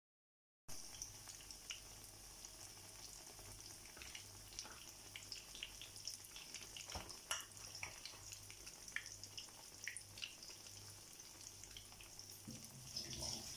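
Battered Nam Wa banana pieces deep-frying in rice bran oil in a small pan: a faint, steady sizzle with scattered pops and crackles, starting a moment in.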